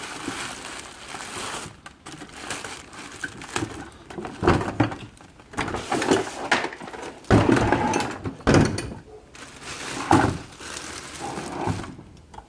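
Handling noises from a portable 12 V air compressor being lifted and turned about: irregular knocks, thuds and rustling, loudest about seven seconds in.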